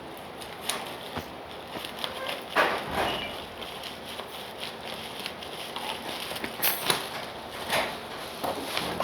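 Scattered knocks, clicks and rustles of hands handling an air purifier's plastic housing and filter. The loudest handling comes about three seconds in and again near seven seconds.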